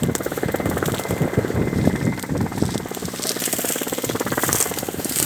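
Helicopter rotor beating fast and steadily, with the engine noise under it.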